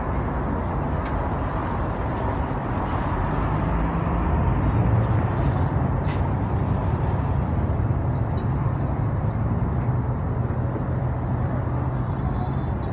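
Steady outdoor rumble of motor-vehicle traffic, with an engine's low hum growing louder around the middle and easing off again.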